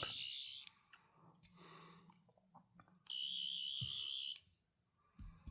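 Replica sonic screwdriver's electronic sound effect, a high warbling whine from its small built-in speaker. It cuts off under a second in and sounds again for over a second around the middle.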